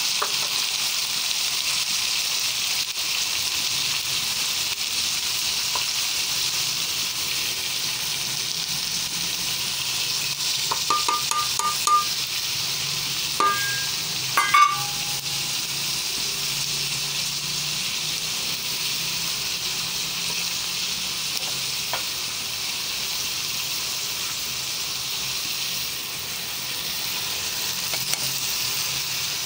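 Diced potatoes and green capsicum (shimla mirch) sizzling in hot oil in a pan: a steady frying hiss. A few short metallic clinks come about halfway through.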